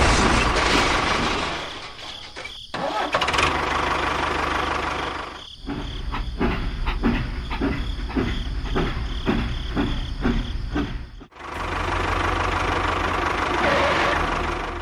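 Engine sounds of a vehicle in separate sections with sudden cuts between them: a rough run at first, then a steady hum, then a rhythmic chugging of about two to three beats a second. Near the end it cuts off suddenly and a steady low engine hum follows.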